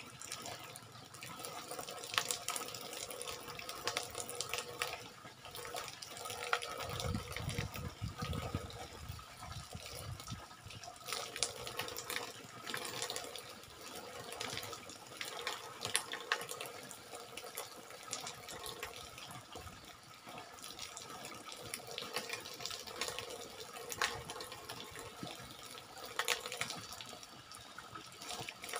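Water streaming down from an overhead bamboo pipe and splashing over a person's head and hair onto a split-bamboo floor, with small splatters and knocks throughout. A brief low rumble comes in about seven seconds in.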